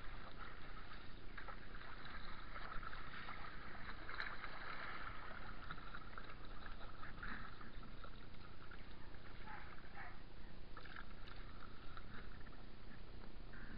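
Kayak being paddled: the paddle blades dipping and splashing and water rushing along the hull.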